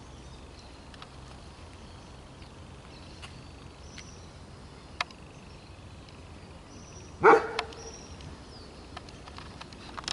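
A single short dog bark about seven seconds in, with faint high chirps and a few sharp clicks around it.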